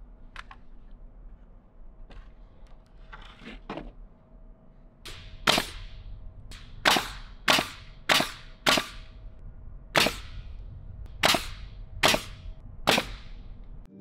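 Nails being driven into rough-sawn boards: about nine sharp, loud cracks, singly or in pairs, starting about five seconds in. Before them come a few fainter knocks of lumber being handled.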